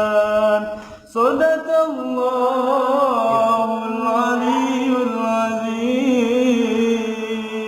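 Solo voice reciting the Qur'an in melodic tilawah style: a held note breaks off about a second in for a quick breath, then a long, ornamented phrase follows, its pitch wavering and gliding.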